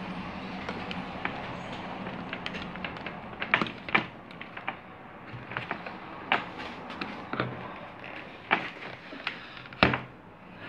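Hard plastic clicks and knocks as PVC pipe fittings and a valve are handled and fitted onto a plastic pool filter pump housing on a table, irregular and scattered, with the loudest knock near the end. A steady low hum and hiss sit underneath.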